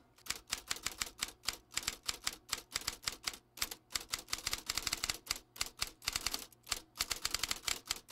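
Typewriter keys clacking in quick, irregular runs of keystrokes with short pauses between them.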